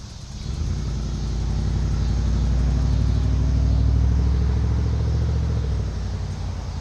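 A car driving past on the street alongside, its engine hum swelling as it approaches and fading away with a slight drop in pitch as it goes by.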